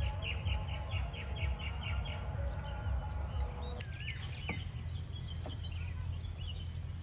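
Small birds chirping, first a quick run of repeated chirps about four a second, then scattered calls. After the first few seconds come light splashes of water as hands wash a cucumber and coriander leaves in a bowl. A steady low rumble runs underneath.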